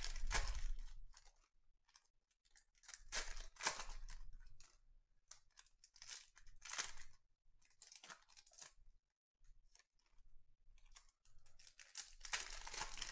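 Foil trading-card pack wrappers being torn open and crinkled by hand, in several short bursts of tearing and rustling.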